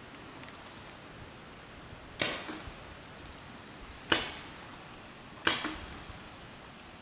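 Paintball marker shots: three single sharp pops, about two seconds and then a second and a half apart, each trailing off briefly.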